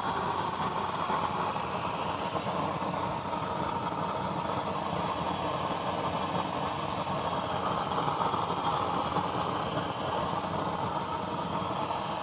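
Used-oil burner running with a blue flame, giving a steady rushing noise.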